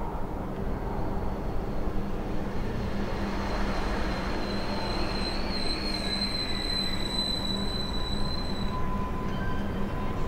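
Passenger train running past with a steady rumble, and a high wheel squeal that rises out of it about halfway through and stops a second or so before the end.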